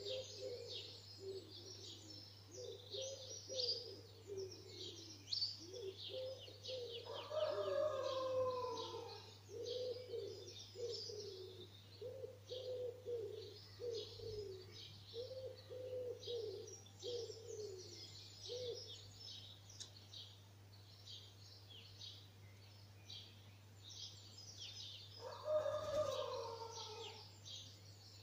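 Dawn chorus of many songbirds chirping and trilling high-pitched without a break, over a pigeon cooing in a low repeated series for about the first two-thirds. A louder call with a falling pitch cuts in twice, about 7 s and 26 s in, and a steady low hum runs underneath.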